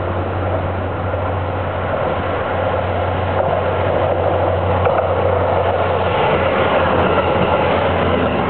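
KiYa 97 diesel rail-transport train passing close by on curved track: its diesel engine hums steadily under the running noise of wheels on the rails, growing louder as it comes up and goes past.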